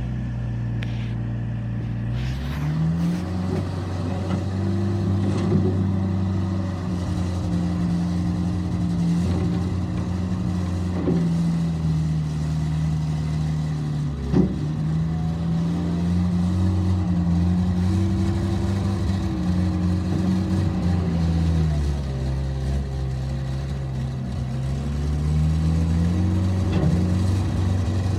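Bobcat 751 skid steer loader's diesel engine running, idling low and then brought up to a higher steady speed about two and a half seconds in. It drops back to idle for a few seconds near the end, then comes back up, with a single sharp clank about halfway.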